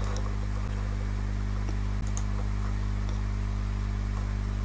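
Steady low electrical hum, a mains buzz in the recording chain, with a few faint computer mouse clicks as the page is changed.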